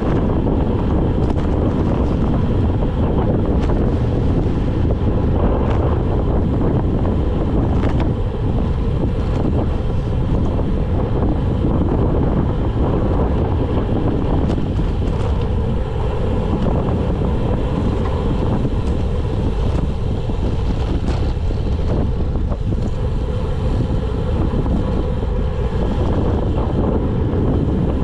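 Wind rushing over the microphone of a road bike coasting downhill at about 23 mph: a loud, deep, steady rumble with a few faint ticks.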